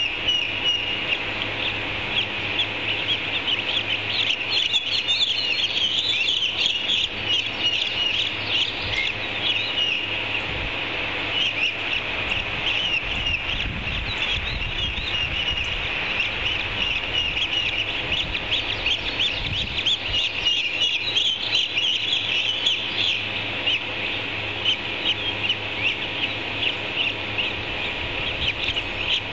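Ospreys calling: a continuous stream of rapid, high-pitched chirps, over a faint low steady hum.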